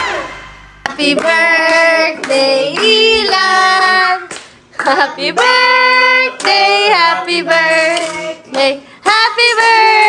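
A group of children singing together in phrases of held notes, with some hand clapping.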